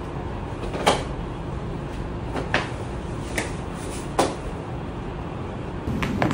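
Five short sharp clicks, spaced one to two seconds apart, over a steady low hum.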